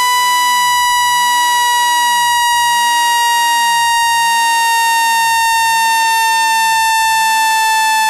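Synthesized speaker-cleaning tone: a loud, continuous electronic tone with strong overtones, gliding slowly down in pitch from about 1 kHz. It is played at full volume so that the vibration pushes water and dust out of a phone speaker.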